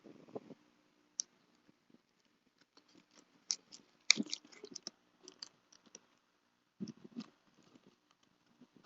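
Packaging being handled and opened by hand: scattered clicks, taps and crinkles, busiest about four seconds in, with another cluster near the end.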